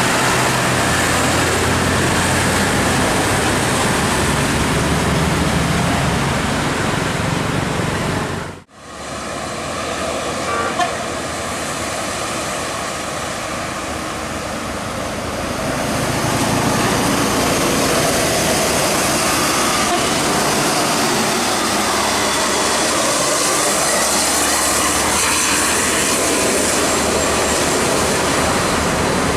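Heavy road traffic, large buses passing with steady engine rumble and tyre noise. The sound drops out abruptly about nine seconds in, then the traffic noise resumes.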